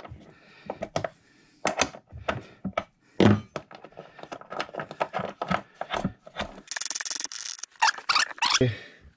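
Combination wrench loosening the nut on the floor mounting bolt of a plastic RV toilet, with irregular clicks, taps and scrapes of metal against the plastic base, and a longer rustling scrape about seven seconds in.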